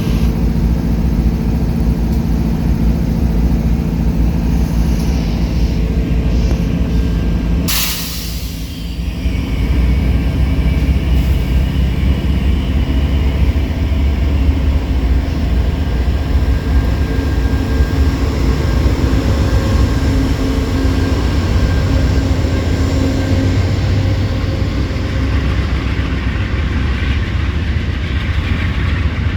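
Diesel-electric freight locomotive running loudly under load as it pulls a passenger train away, with a steady low engine drone throughout. A short burst of noise comes about eight seconds in.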